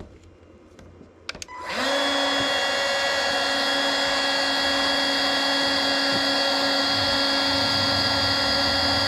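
A Milwaukee heat gun switched on with a click, its fan spinning up and then running with a steady whine, heating a solder-seal connector on a wire splice.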